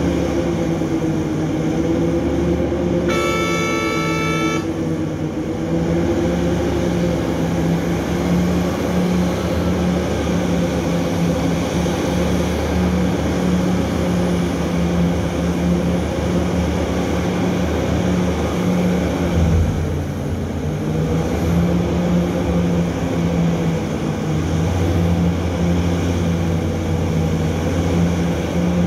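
Heavy diesel engines of a Hitachi EX3600 mining excavator and its haul truck running with a steady drone that rises and falls slightly as the excavator works, dipping briefly about two-thirds of the way through. A horn sounds once, for about a second and a half, about three seconds in, as the truck is loaded and about to pull away.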